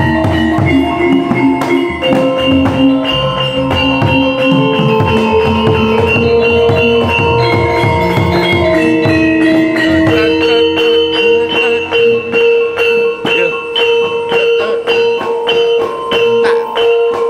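Javanese gamelan playing an ayak in pelog barang: bronze keyed metallophones and hanging gongs ring in held tones that step from pitch to pitch, over fast, dense kendang drumming.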